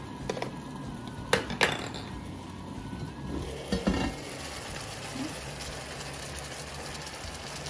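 Two sharp clinks of a heavy lid on an enamelled cast-iron braiser, then a knock as the lid is lifted off about four seconds in, then the soft, steady sizzle of chicken pieces simmering in their own juices.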